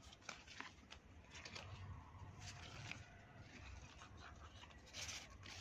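Near silence, with a few faint rustles and light taps as betel leaves are fitted into a small steel pot.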